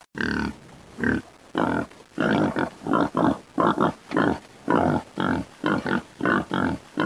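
Sound effect of an animal's repeated short, pitched calls, about two a second, starting suddenly after silence.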